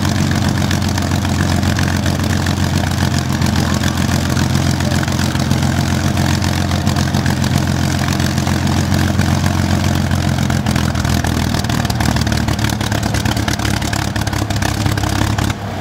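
Rolls-Royce Merlin V12 aero engine running steadily on a trailer-mounted test stand, its propeller turning.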